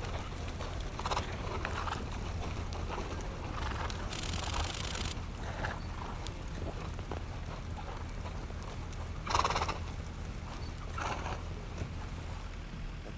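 Horses being chased through snow, giving several short calls, the loudest about nine seconds in, over a steady low rumble.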